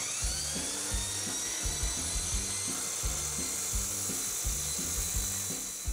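Abrasive chop saw with its cutoff wheel spinning up in a rising whine, then grinding through 3/16 inch steel flat bar in a steady high whine and hiss. The sound stops suddenly at the very end.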